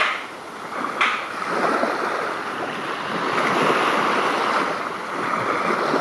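Steady rushing noise with no voices, swelling suddenly at the start and again about a second in.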